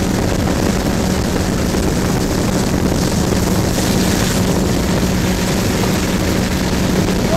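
Motorboat engine running steadily at towing speed, a steady low hum under the rush of water and spray, with a brief surge of hiss about four seconds in.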